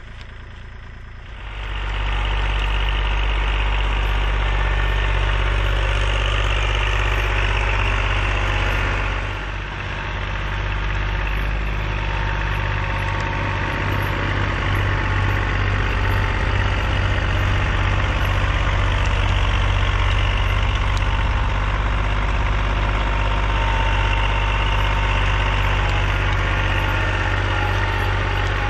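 A 25-horsepower Kubota compact tractor's diesel engine running steadily under load, driving a 72-inch Agrotrend three-point-hitch snow blower that throws snow. The steady rush of the blower sits over the engine's low note. It comes in about a second and a half in and dips briefly about nine seconds in.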